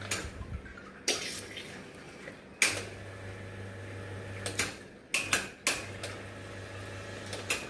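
Clinks and knocks of cups and metal parts being handled at a Wega Vegasso espresso machine, about seven separate strikes, over a low hum that starts and stops in stretches of a second or two.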